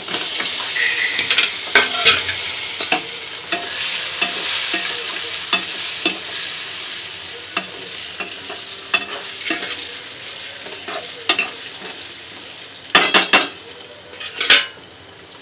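Peeled boiled eggs going into hot fried masala in a kadhai set off a loud sizzle that slowly dies down, while a spatula scrapes and knocks against the pan; a few sharper knocks come near the end.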